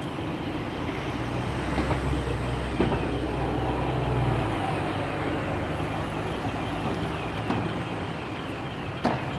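City street traffic rumbling steadily, with a heavy vehicle such as a bus or tram passing with a low drone. A couple of short knocks stand out, one about three seconds in and one near the end.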